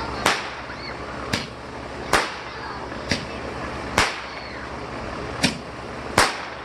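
Thunder Roman candle firing: seven sharp cracks, about one a second.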